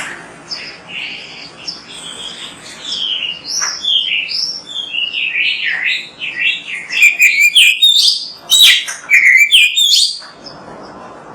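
Oriental magpie-robin (kacer) singing: a varied run of quick whistled phrases and chirps that slide up and down in pitch. It grows louder partway through and stops about ten seconds in.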